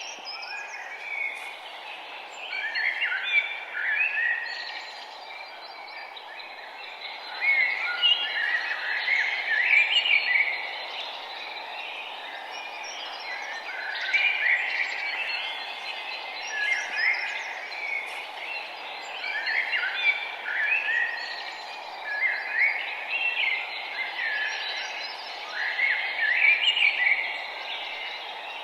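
Songbirds singing short chirping phrases that recur every two or three seconds, over a steady low background hiss.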